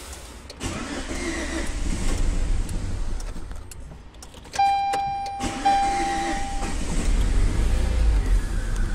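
Chevrolet Sail 1.2 four-cylinder petrol engine running on its first start after a cylinder-head repair, being revved gently to keep it going. It dips about halfway, then picks up again and runs stronger toward the end. A steady electronic beep sounds for about two seconds in the middle.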